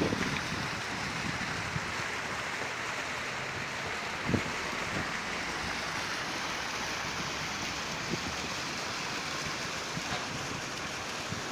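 Waterfall rushing steadily, with a few brief low thumps near the start and about four seconds in.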